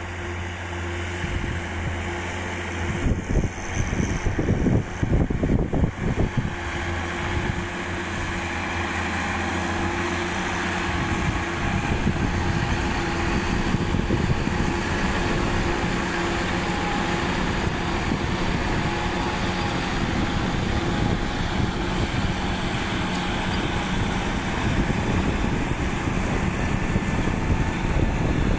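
John Deere 7930 tractor's diesel engine running steadily under load while pulling a plough, with a rougher, louder stretch about three to six seconds in.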